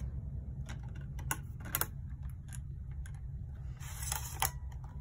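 Plastic clicks and snaps from an ORIGBELIE slim external USB DVD burner as a blank disc is loaded into its tray and the tray is pushed shut by hand: a few single clicks, then a quick cluster of clicks about four seconds in, the loudest near the end, over a steady low hum.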